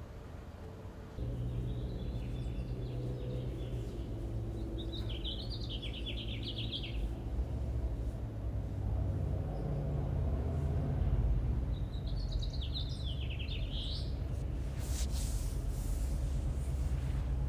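Outdoor ambience: a steady low rumble, with birds chirping in two bursts of rapid notes, about five and twelve seconds in.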